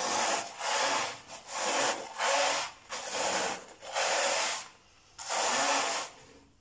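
Hand scrub brush rubbing back and forth over a foam-covered metal-mesh range hood grease filter, about two strokes a second. The strokes pause briefly near the end before one last, longer stroke.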